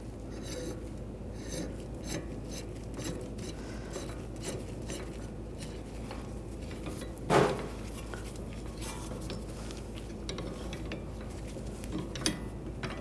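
Light metal clinks and rattling from a slide hammer being worked on a car's rear wheel hub, with one sharp, loud metallic clank about halfway through and a smaller one near the end.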